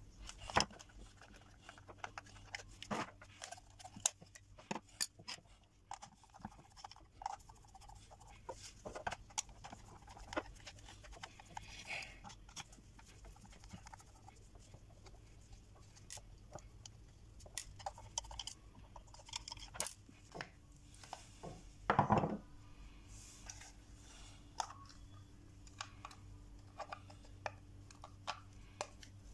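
Scattered clicks, taps and rattles of the plastic case of a handheld locator being handled and opened, with a louder clatter about 22 seconds in. A faint steady low hum runs underneath.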